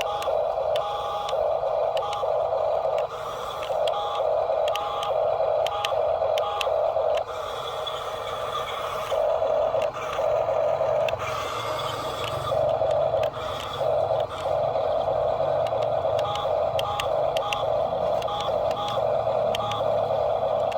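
Electric drive motors and plastic gearboxes of toy RC construction trucks whining in short on-off spurts as the throttle is worked, with scattered clicks.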